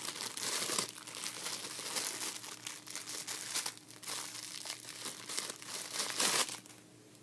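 Clear plastic wrapper crinkling and crackling in irregular spurts as a squishy foam toy is pulled out of its bag. The crinkling stops abruptly shortly before the end.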